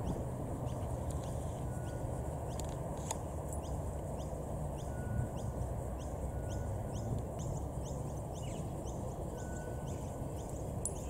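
Evening outdoor ambience under a gathering storm: a steady low rumble with a regular series of short high chirps, a little more than one a second, and a few brief lower whistles from calling birds or insects.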